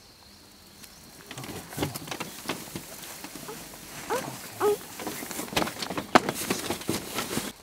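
Rustling of clothing, tactical gear and dry straw with scattered small clicks and knocks as a child is lifted and carried, with a couple of a child's brief whimpers about four seconds in.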